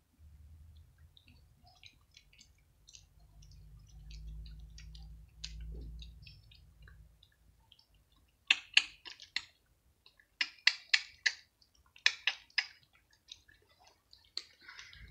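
Cats crunching dry kibble. Faint, scattered crisp ticks over a low rumble at first, then from about halfway, loud clusters of sharp crunches, several a second, in three or four bursts.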